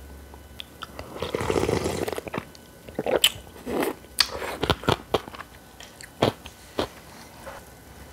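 Close-miked eating of naengmyeon cold noodles: a longer noisy burst about a second in, then a run of sharp crunchy bites and wet chewing clicks.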